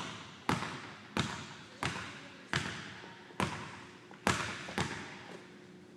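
Basketball dribbled on a hardwood gym floor: about eight sharp bounces, a little under a second apart, each echoing off the walls of the large empty hall.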